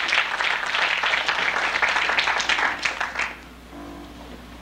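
Audience applauding, the clapping dying away about three seconds in. Then an orchestra plays a few soft held notes.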